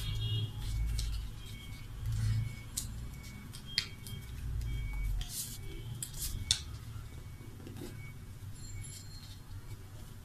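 Sheet of paper being folded and creased by hand: bursts of rustling and crinkling with a couple of sharp ticks, over a low rumble in the first half.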